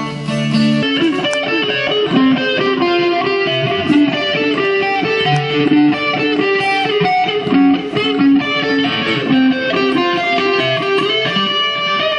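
Guitar music: an instrumental passage of quick plucked notes.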